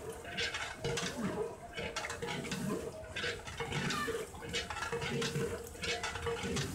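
A long metal ladle stirring a thick curry gravy in a large aluminium pot. It scrapes and clinks against the pot's sides in quick irregular strokes, with liquid sloshing. A steady hum runs underneath.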